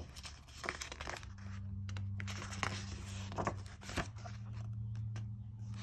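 Pages of a paper book being handled and turned: rustling and scraping with several sharp clicks. A low steady hum comes in about a second in and runs underneath.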